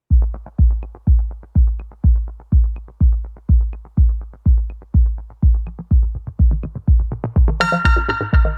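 Electronic background music: a deep kick drum on every beat, about two a second, with light ticks between. A bright synthesizer chord comes in near the end.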